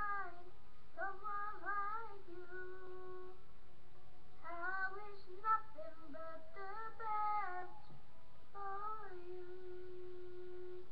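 A boy singing a melody unaccompanied in a few short phrases, ending on a long held note.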